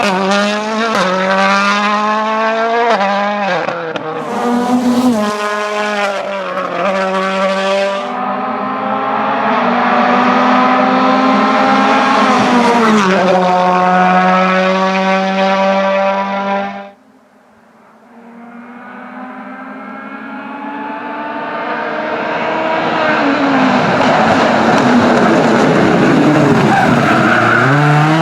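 Toyota Yaris WRC rally car's 1.6-litre turbocharged four-cylinder engine at full throttle, its pitch climbing and dropping again and again with quick gear changes and lifts. About seventeen seconds in the sound cuts off abruptly; then a rally car is heard approaching from afar, growing steadily louder.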